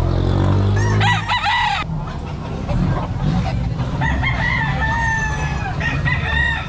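Gamecock roosters crowing: a short crow about a second in, then a long drawn-out crow from about four seconds in until near the end, over a steady low rumble.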